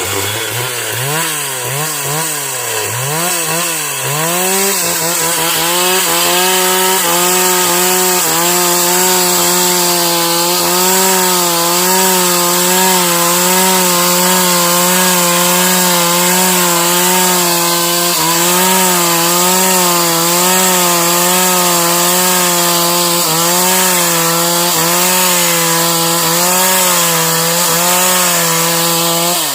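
Stihl MS 381 two-stroke chainsaw revved up and down several times, then held at high throttle, cutting into wood with a slightly wavering pitch; near the end the revs dip briefly and recover.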